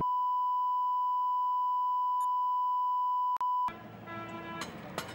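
Steady 1 kHz line-up test tone accompanying colour bars on a videotape, with a brief dropout just before it cuts off about three and a half seconds in. After the cut comes a quieter, noisy stretch with scattered clicks as the tape runs into a new recording.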